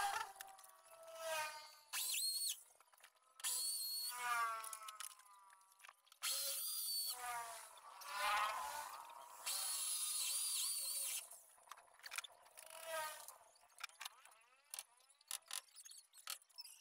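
Electric drill drilling into the wall in several bursts of a second or two. Between the bursts its motor whine rises and falls as the trigger is eased on and off, and the last few seconds hold only scattered clicks and knocks.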